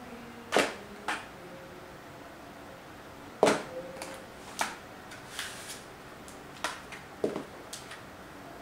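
A small plastic box being crushed underfoot by block-heeled shoes on a tile floor: several sharp cracks and heel knocks spaced over the seconds, the loudest about half a second in and again about three and a half seconds in, with smaller crackles of plastic between.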